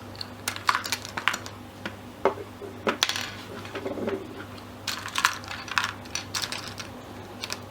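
Loose plastic pieces of a taken-apart 4x4 Rubik's cube clicking and clacking together as they are sorted by hand into centers, edges and corners, in irregular taps over a low steady hum.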